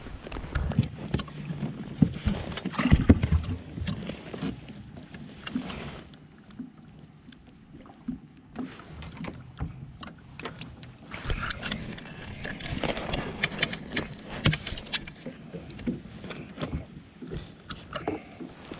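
Water slapping and lapping against a small fishing boat's hull in choppy, wind-driven water, with uneven low thumps and scattered knocks.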